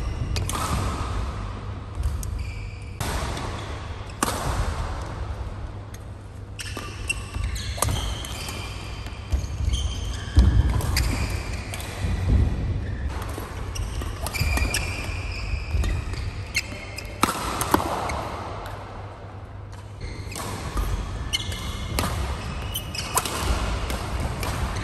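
Badminton rally: rackets striking the shuttlecock again and again, court shoes squeaking on the court mat, and footsteps, with the echo of a large hall. A steady low rumble lies underneath.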